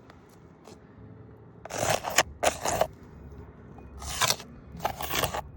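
Asphalt roofing shingles scraping and rustling in about four short strokes as they are lifted and handled.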